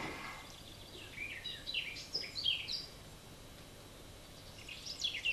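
Birds chirping: two runs of quick, short, falling chirps, one about a second in and another starting near the end.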